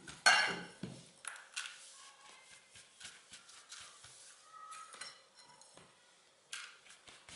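Silicone spatula knocking and scraping against a glass bowl and an aluminium foil pan while pressing buttery digestive-biscuit crumbs into a crumb base: a sharp knock just after the start, then light scrapes and ticks, and another knock near the end.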